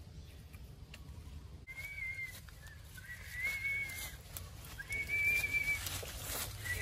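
A boy whistling through pursed lips: four high, slightly wavering notes, each lasting half a second to a second, with short pauses between them.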